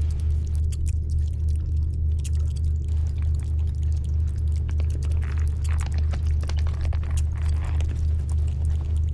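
A deep, steady hum that pulses a few times a second, with scattered faint clicks and crackles over it.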